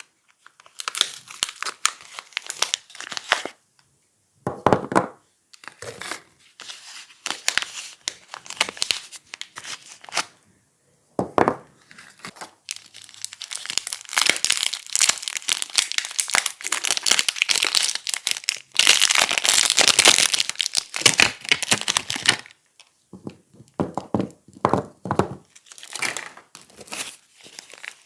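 Soap packaging being crinkled and torn open by hand: irregular crackling and tearing, thickest and loudest from about halfway through, with a few heavier handling bumps.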